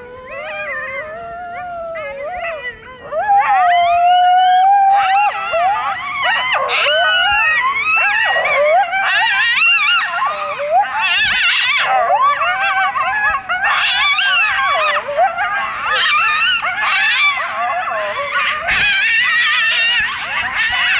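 A pack of coyotes howling and yipping. A few wavering howls, including one long held howl, build about five seconds in into a loud chorus of many overlapping howls and yips.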